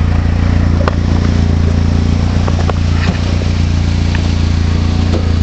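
Ford Mustang SVO's turbocharged 2.3-litre four-cylinder running steadily in gear, heard from under the car, with a few light clicks from the drivetrain. The owner is hunting a rattle from the bell housing that he blames on a failing torque converter.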